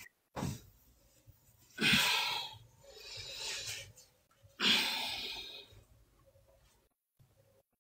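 A person's loud breathy exhalations, like sighs, four in a row, each starting suddenly and trailing off, the last about five seconds in; then quiet.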